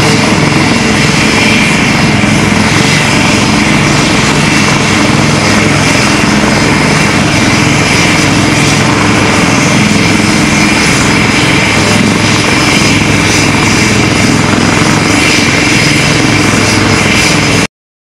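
HAL Light Combat Helicopter's twin Shakti turboshaft engines and rotors running steadily while it taxis on the ground: a steady high turbine whine over a chopping rotor beat. It cuts off abruptly near the end.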